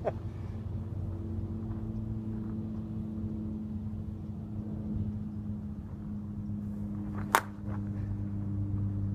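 One sharp crack of a 27 oz end-loaded DeMarini "The One" senior softball bat striking a 375/44 softball about seven seconds in, over a steady low engine-like hum.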